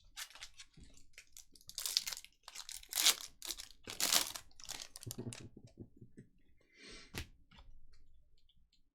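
A trading-card pack wrapper being torn open and crinkled by hand: several quick rips, the loudest about two to four seconds in, followed by softer rustling and a sharp click.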